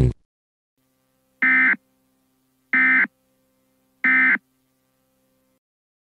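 Emergency Alert System SAME end-of-message data burst, sent three times: three short, identical buzzy warbles about 1.3 seconds apart, marking the end of the tornado warning message. A faint steady hum lies underneath.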